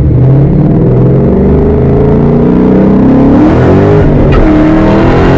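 Ford 5.0 Coyote V8 at full throttle in a hard first-gear pull, through an aftermarket X-pipe and axle-back exhaust. The engine note climbs steadily for about four seconds, drops sharply at an upshift, then climbs again.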